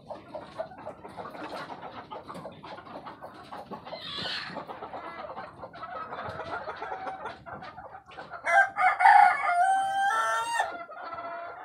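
A flock of ayam kampung (Indonesian village chickens) clucking throughout, with a rooster crowing loudly for about two seconds near the end.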